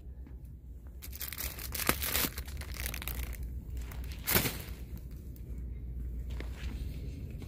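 Plastic wrap on multipacks of paper towels crinkling and rustling in bursts as the packs are handled and set into a wire shopping cart, with one sharp knock about four and a half seconds in.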